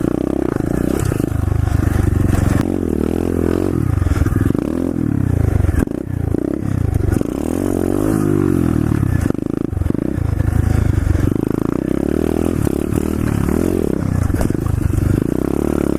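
Pit bike engine revving up and down over and over as the bike is ridden through slippery mud, with the pitch repeatedly rising and falling under throttle.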